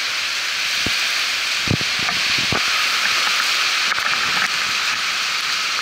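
Heavy rain pouring steadily in a storm, an even hiss, with a few soft knocks about two seconds in.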